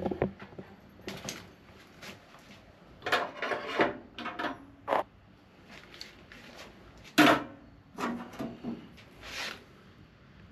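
Irregular clicks, knocks and scraping of hands and tools on an Ingersoll-Rand Type 30 compressor pump while it is opened to check the crankcase oil. The sharpest knock comes about seven seconds in.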